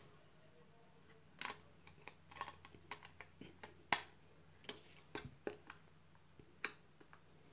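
Plastic parts of a Samsung wireless charger's housing clicking and tapping as the halves are fitted and pressed together: a dozen or so irregular sharp clicks, the loudest about four seconds in.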